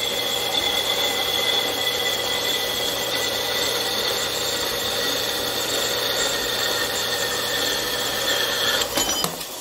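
4x6 horizontal metal-cutting bandsaw running and cutting aluminium stock, a steady high whine of the blade over the motor. Near the end the sound breaks up with a short clatter and starts to die away as the cut finishes and the saw shuts off.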